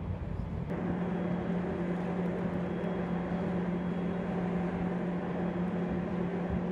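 Steady low machinery hum aboard a moored warship, starting about a second in and holding one unchanging pitch.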